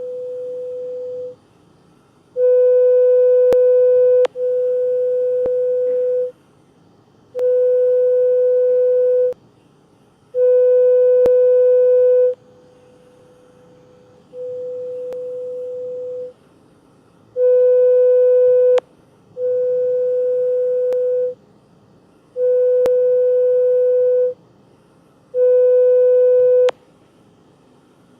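A hearing-test app playing a pure 500 Hz test tone in beeps of one to two seconds, about ten times, at varying loudness, as in pure-tone audiometry; light clicks fall here and there among the tones.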